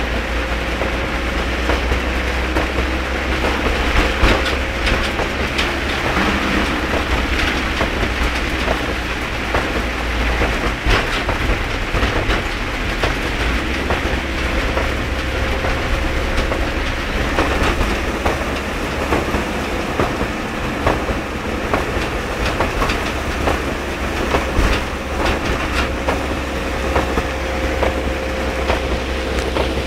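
Very heavy rain with many sharp drop impacts over a steady deep rumble.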